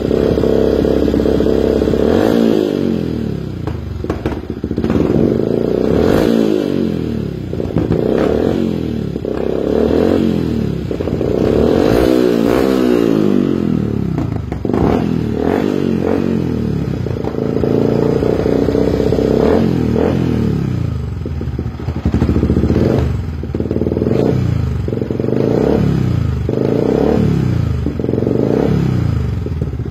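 Single-cylinder engine of a Yamaha New Vixion fitted with a flame-spitting exhaust, revved over and over. The pitch rises and falls with each rev, and the blips come quicker in the second half. Sharp bangs from the exhaust crack out now and then between the revs.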